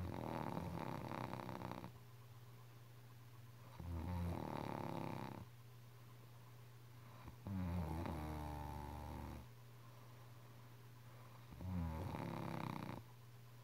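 A person snoring: four long snores in a slow, regular rhythm, about four seconds apart.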